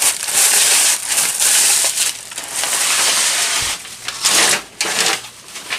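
Packing material in a cardboard box crunching and scraping as the large ceiling fan blades are pulled out of it, with two sharper, louder scrapes near the end.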